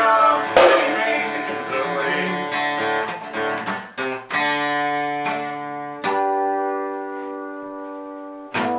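Acoustic guitar strummed, with single chords struck about five times and left to ring out and fade between strokes.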